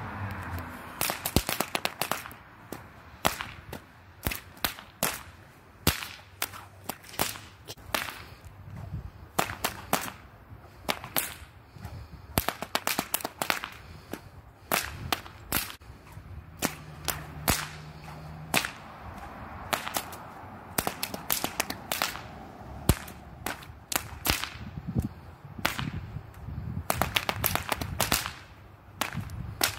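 A pair of short 2-foot stock whips, one in each hand, cracked over and over in quick runs of sharp cracks, several a second, with brief pauses between runs.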